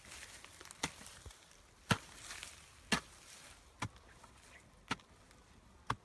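Six sharp chopping strikes, evenly spaced about one a second.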